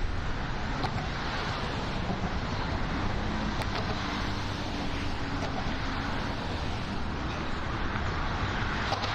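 Steady city street traffic noise, a continuous rumble and hiss of passing cars.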